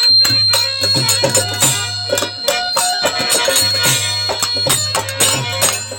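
Instrumental interlude of a Bhojpuri folk nirgun song: fast hand-drum and percussion strokes over a held low bass note and a sustained high tone, with no singing.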